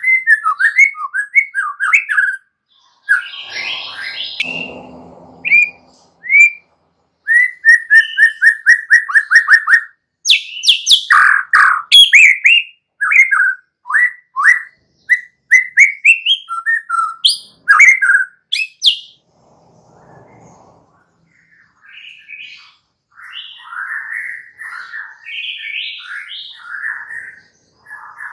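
White-rumped shama singing: fast runs of short, repeated whistled notes, with loud sweeping phrases through the middle, then a softer, scratchier twitter near the end.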